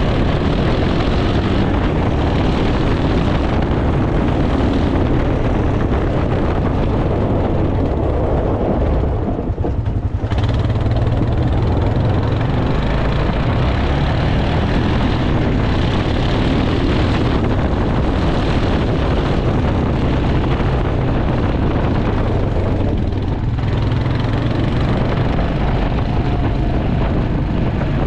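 1997 Honda Foreman 400 ATV's single-cylinder four-stroke engine running steadily on a test drive, with a brief dip in level about ten seconds in.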